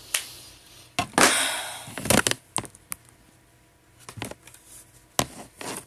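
Makeup containers and brushes handled close to the microphone: a scattering of small sharp clicks and knocks, with a brief scraping rustle about a second in.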